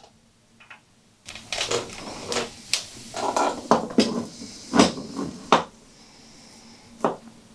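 A run of knocks, clicks and scrapes from about a second in, lasting several seconds: a CYC Photon mid-drive motor being handled, its spacers fitted on the shaft and the motor pushed into a bicycle's bottom bracket shell. There are a couple of single clicks near the end.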